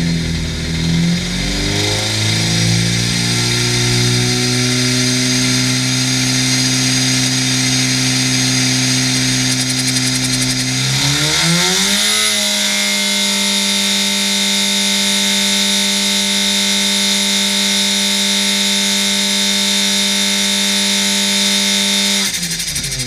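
A supercharged 999cc five-port A-series four-cylinder engine running under load on an engine dyno. It is held at one steady speed, climbs quickly about halfway through to a higher speed, holds there and drops off right at the end. A high whine from its Rotrex supercharger sits above the engine note and grows stronger at the higher speed.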